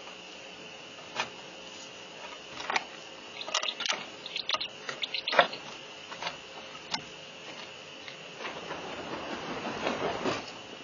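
Adult great horned owl arriving at a wooden nest box: a series of sharp clicks and scrapes, busiest in the middle, then a rustling swell near the end as it shuffles onto the wood-chip floor. A steady faint high hum runs underneath.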